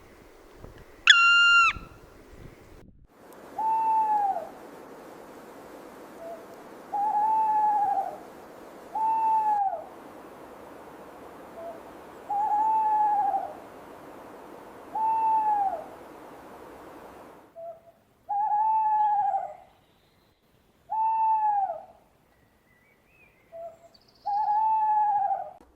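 A single loud, drawn-out, high call from a black woodpecker about a second in. Then a tawny owl calls over and over: eight arching hoots, each rising and falling, roughly two seconds apart.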